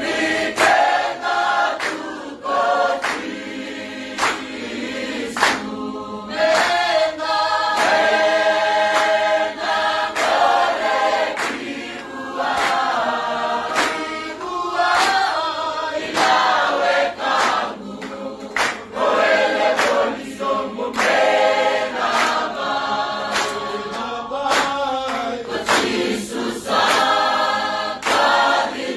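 A choir singing in harmony, with regular sharp percussive beats.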